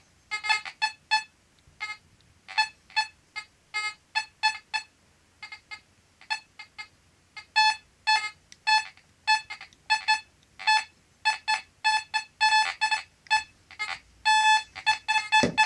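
Fisher F44 metal detector chattering: short, irregular beeps of one mid-pitched tone, coming in clusters with short gaps. The false signals are the noise problem that the owner puts down to electromagnetic interference.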